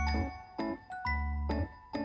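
Background music: a light keyboard tune of bell-like struck notes over a bass line, new notes coming about twice a second.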